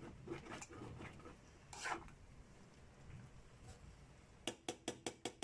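Metal spoon stirring a thick chicken stew in an aluminium pot, scraping the pot and squelching through the sauce, then about six quick taps near the end, as of the spoon knocked against the pot.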